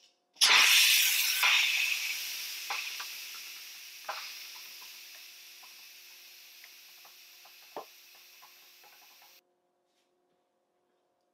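Electric pressure cooker's steam release valve venting: a sudden loud hiss that fades steadily over about nine seconds, with small crackles and clicks, then cuts off abruptly. This is the steam escaping in a quick release as the pressure inside drops.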